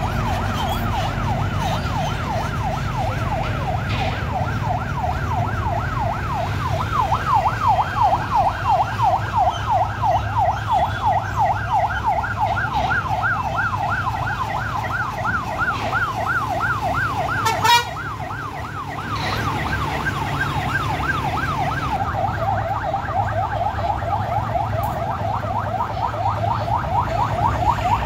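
Electronic siren wailing in a fast up-and-down yelp, about four sweeps a second, over a steady low rumble of idling engines. A single sharp crack cuts in about two-thirds of the way through, and the siren is briefly fainter after it.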